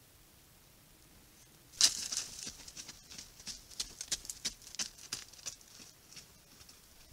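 Waterbuck hooves stepping and scuffing on dry, bare ground close to a trail camera: near silence, then a sudden sharp knock about two seconds in, followed by a quick, irregular run of crisp ticks and scuffs that thins out.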